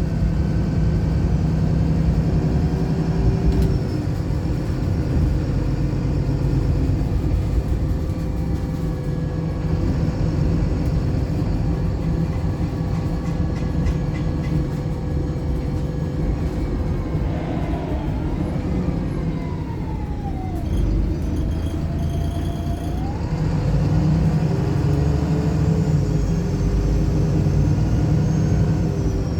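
Engine and driveline of a Wright Pulsar single-decker bus heard from on board, running steadily under way. About two-thirds of the way through, a whine falls in pitch and then rises again.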